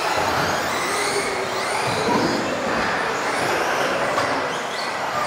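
Several electric off-road RC cars racing, their motors whining and rising and falling in pitch over the steady noise of tyres on the track.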